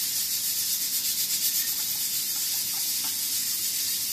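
A steady high hiss with no breaks.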